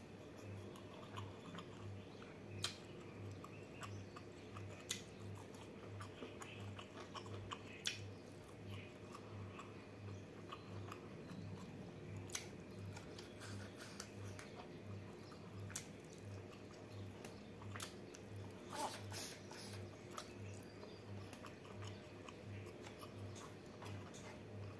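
A person eating rice and shell-on prawns by hand, miked close: soft chewing with sharp mouth clicks and small crunches now and then. Underneath runs a faint low hum that pulses a little more than once a second.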